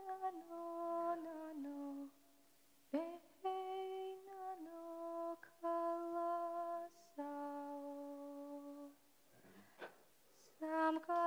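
A young woman's solo voice singing a Khevsur lullaby (nana), unaccompanied, in slow phrases of long held notes with short pauses between them.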